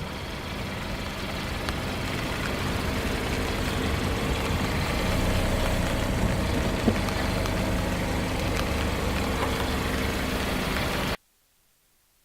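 Car engine running steadily at low revs, getting slightly louder, with one sharp click about seven seconds in; the sound cuts off suddenly about eleven seconds in.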